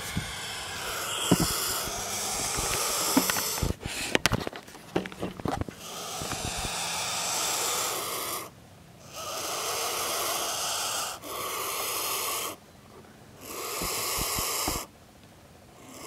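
Newly hatched turkey vulture chicks hissing: long breathy hisses, from about six seconds in coming in stretches of one to two seconds with short breaks between. A few sharp knocks and clatter sound around four to five seconds in.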